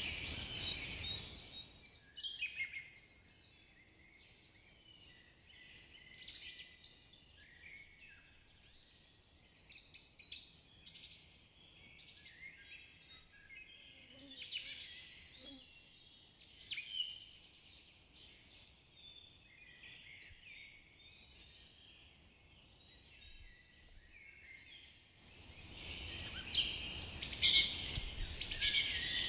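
Birds chirping and calling, many short high notes overlapping. The calls are faint through the middle stretch and grow louder again for the last few seconds.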